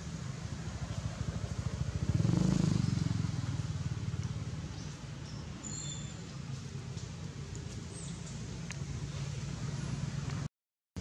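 A low, steady motor drone, as from a vehicle engine running in the background, swelling about two seconds in. The sound cuts out briefly near the end.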